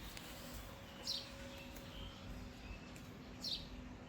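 Faint bird chirps over low background noise: two short chirps falling in pitch, one about a second in and one near the end, with a few softer notes between.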